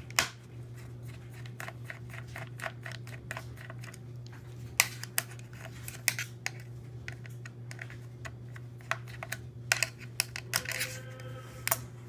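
Small irregular clicks and ticks from a screwdriver turning out the hard-drive cover screw on the underside of a Dell Latitude E4300 laptop, with a few sharper clicks as the plastic cover is handled. A steady low hum runs underneath.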